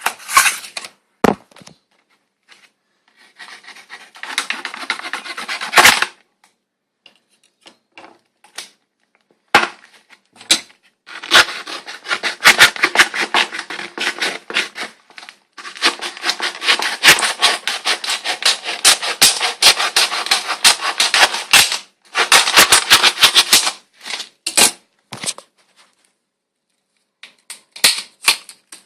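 Stiff plastic blister packaging being cut open and pulled apart by hand, crackling and snapping in bursts of sharp clicks, with long dense stretches of crackling in the middle and quiet gaps between.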